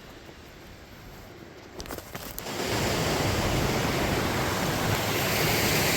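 Steady rush of flowing water, like a creek or small waterfall, setting in about two and a half seconds in after a quieter stretch with a few faint clicks.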